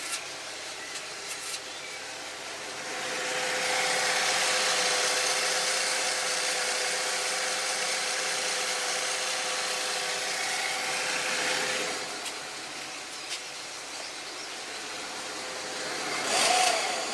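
Saab 9-3 1.8T engine idling from cold, a steady tone over a mechanical hiss that grows louder for several seconds in the middle. This is the cold-engine noise that was traced to a failing balance-shaft chain tensioner and a broken chain guide.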